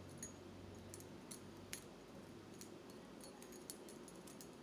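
Faint, irregular small clicks and clinks of a spinnerbait's metal parts being handled while a rubber band is wrapped tightly around it.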